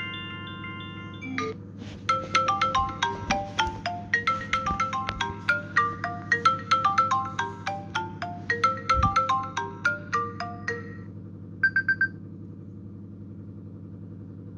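iPhone ringtones played back to back: one tune ends, then a fast, bright melody of short plinking notes like a marimba, followed near the end by a brief burst of quick beeps. A steady low hum runs underneath.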